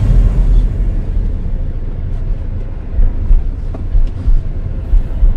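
Cabin noise of a Jeep Compass Trailhawk driving slowly over rough, sandy off-road ground: a steady low rumble, with a few dull thumps in the second half as it rolls over bumps.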